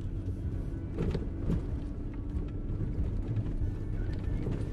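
Music over the steady low drone of a Jeep Wrangler JK driving on a dirt trail, its engine and tyres heard from inside the cab, with a couple of knocks about a second in.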